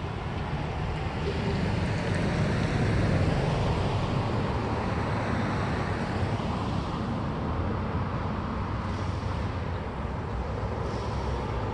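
Road traffic: cars driving past, a steady wash of engine and tyre noise with a low rumble that swells a couple of seconds in.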